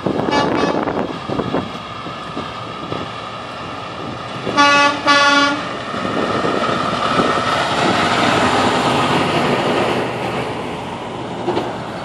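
Semi truck's air horn sounding two short blasts about four and a half seconds in, then the tractor-trailer's diesel engine and tyres as it passes close by.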